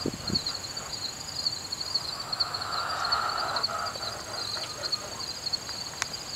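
Steady, rapidly pulsing chirring of insects. A soft rushing noise swells and fades in the middle, and there are a couple of light knocks right at the start.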